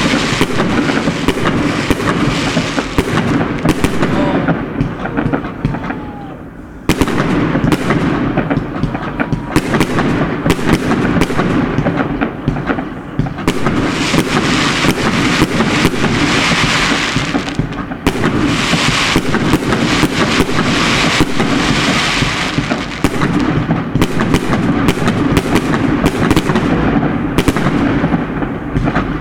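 Many fireworks going off at once: a dense, continuous run of rapid overlapping bangs, with a short lull about six seconds in before it picks up again.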